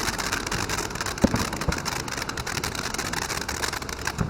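A ground fountain firework burning, a steady hiss of spraying sparks with fine crackling throughout. A short low bump comes a little over a second in.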